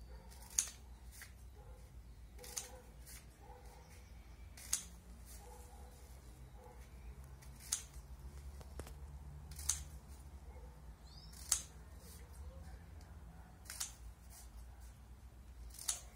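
Scissors snipping through a folded newspaper strip, cutting it into small pieces: eight sharp snips, about one every two seconds.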